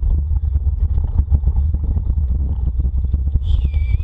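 Dog rig rolling fast over a leaf-covered dirt trail behind a running dog team: heavy wind rumble on the mounted microphone with continual clattering and rattling from the rig. A short high call falling in pitch comes near the end.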